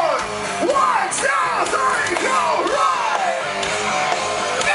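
Rock band playing live through a large amphitheatre PA, with guitar, heard from inside the crowd. Yells from the crowd rise over the music as high, falling cries about every second.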